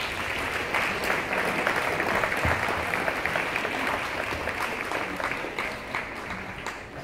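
Audience applauding, a dense patter of many hands clapping that builds in the first second and eases off near the end.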